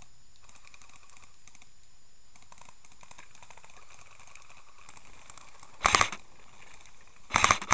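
Quiet rustling and small clicks of someone moving through bracken undergrowth. A loud, sharp burst about six seconds in and another near the end.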